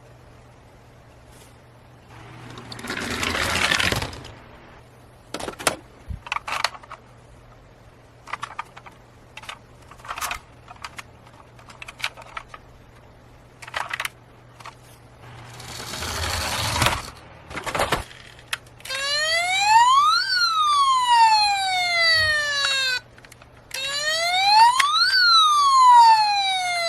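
Toy cars rolling down a plastic slide in two rushes of about two seconds each, with scattered clicks and clacks of toys between them. From about two-thirds in, a toy's electronic siren wails up and down twice, louder than the rest.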